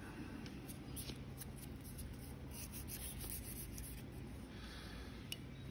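Faint scratching of sandpaper rubbed by hand against a straight razor's steel blade near the spine, in short irregular strokes, taking off surface rust. There is a single sharp tick about five seconds in.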